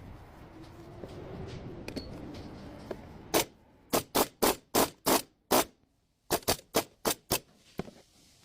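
A faint low hum, then a quick series of about a dozen sharp, loud knocks or taps in two runs of roughly six, about three or four a second.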